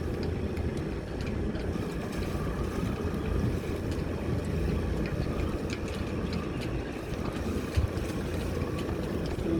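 Boat's engine running steadily, with wind noise on the microphone.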